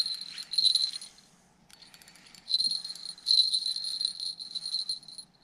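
Spinning reel's drag buzzing in runs as a hooked trout pulls line. It buzzes through the first second, stops, and starts again about two and a half seconds in, running until near the end.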